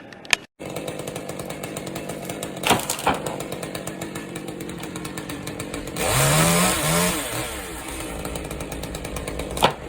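Chainsaw running, revved up twice about six seconds in, with a few sharp knocks along the way.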